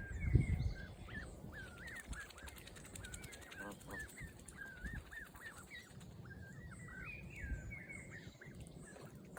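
A flock of waterfowl calling: many short, rising-and-falling calls overlapping one another throughout, with a low thump about half a second in.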